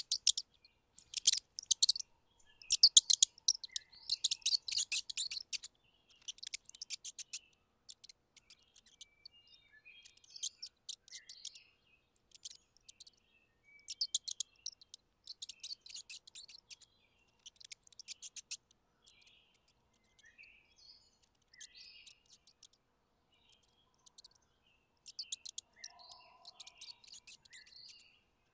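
Mice squeaking in short bursts of rapid, very high-pitched chittering, each burst lasting about half a second to a second. The bursts are loudest and closest together in the first six seconds, then come more sparsely.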